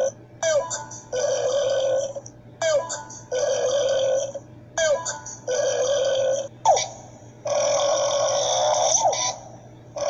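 A series of loud burps, one after another about every two seconds: each starts with a short catch and pitch swoop, then is held for about a second. The fourth is held longer, nearly two seconds, and another begins near the end.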